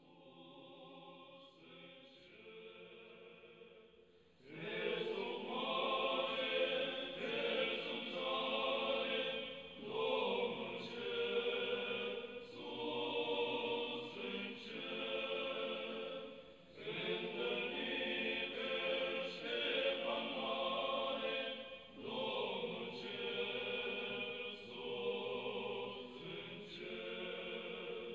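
Background music of a choir singing, soft at first and swelling much louder about four seconds in, then going on in phrases of a couple of seconds each.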